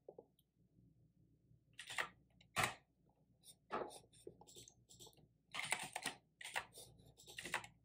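Typing on a computer keyboard: irregular, faint keystrokes in short runs, starting about two seconds in, as shell commands are typed.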